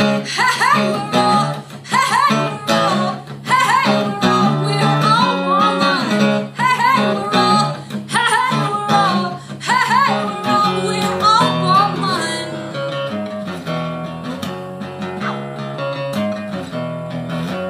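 A woman sings over a strummed acoustic guitar. About twelve seconds in, the voice stops and the guitar plays on alone.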